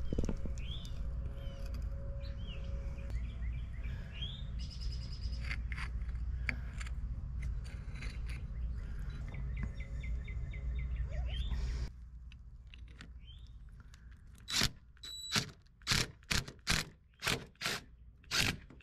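Birds chirping over a steady low outdoor hum. About two-thirds in, a cordless drill-driver runs in about eight short bursts, driving a Tapcon concrete screw through the hose bib mounting plate into brick.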